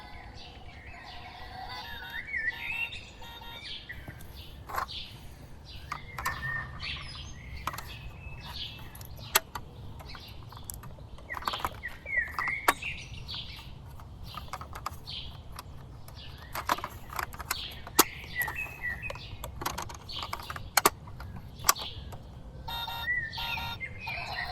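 Small birds chirping in short rising and falling calls throughout, with scattered sharp clicks and taps; the loudest click comes about eighteen seconds in.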